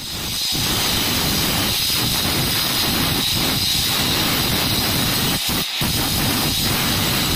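Electric angle grinder grinding the edge of a cement door frame: a loud, steady grinding noise that starts suddenly and briefly drops off about five and a half seconds in.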